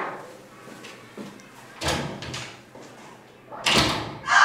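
Two dull knocks about two seconds apart, each dying away quickly. A loud steady rushing noise starts at the very end.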